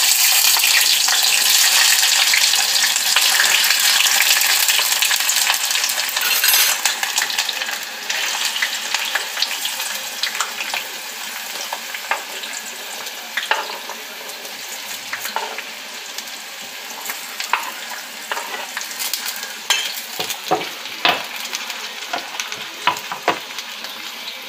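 Chopped tomatillos and serrano chiles sizzling in hot oil in a saucepan, loud at first and dying down after about seven seconds as the oil cools under the added vegetables. Scattered sharp clicks sound over the quieter sizzle in the second half.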